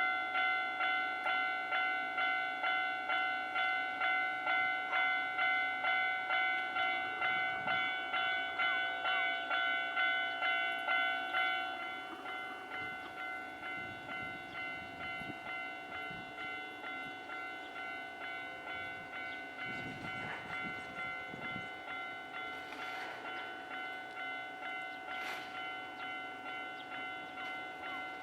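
Japanese railway level-crossing warning bell ringing, a repeated electronic ding about one and a half times a second. It drops to a quieter level about twelve seconds in and keeps ringing.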